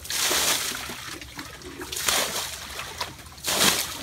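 Muddy water being bailed out of a shallow stream pool with a bucket: three splashes of scooped and thrown water, the last one near the end the loudest, with trickling between.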